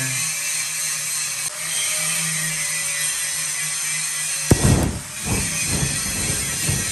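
A power tool runs steadily as it trims a steel knife bolster, with a steady low hum under a high whine. About four and a half seconds in it gives way to a gas forge burner running with a loud, rough, fluttering rush.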